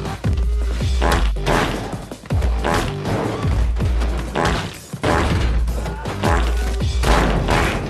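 Action-film fight soundtrack: loud music with a heavy bass beat, overlaid with a series of blows, thuds and crashes.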